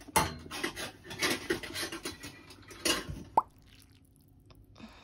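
Instant ramen being eaten and served: a run of short wet slurping and eating sounds with utensils working the noodles, and a sharp clink about three and a half seconds in. The last second and a half is quiet.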